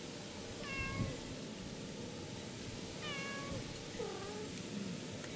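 Cat meowing three times in short calls, the third lower and fainter.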